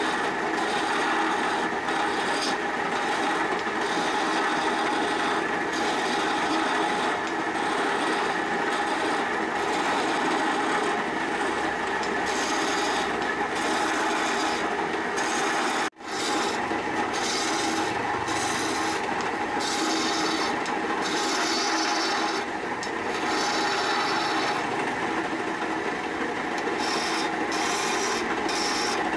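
Hand-held turning chisel scraping and cutting a small piece of wood spinning on a lathe: a steady rasping with the lathe's running hum underneath. It cuts out for an instant just past halfway, then carries on.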